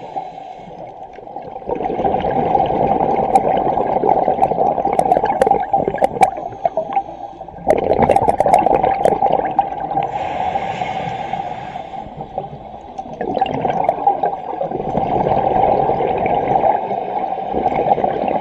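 Scuba diver's exhaled bubbles gurgling and rushing past the microphone in several long bursts, with quieter breaks between breaths, and scattered sharp clicks.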